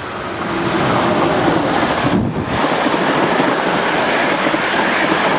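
Passenger train passing close by the station platform at speed: a steady rush of air and rolling noise from the cars, swelling over the first second as the front draws level and then holding loud, with wind buffeting the microphone.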